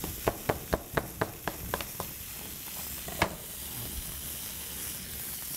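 Chef's knife slicing through an apple onto a cutting board, quick even chops about four or five a second for the first two seconds, with a single knock about three seconds in. Behind it, the steady sizzle of chicken sautéing in a pan.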